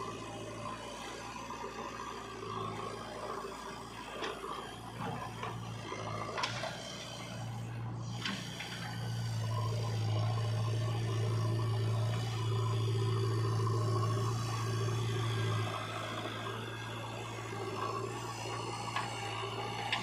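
Diesel engines of a JCB 3DX backhoe loader and a Mahindra 475 DI tractor running, with scraping and a couple of knocks as earth is loaded into the trolley. The low engine drone grows louder for several seconds past the middle, then eases back.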